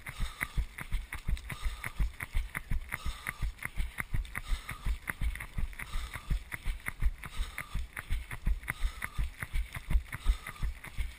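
Running footfalls at race pace on a wet paved path, a regular thud and slap about three times a second, picked up by a GoPro worn by the runner.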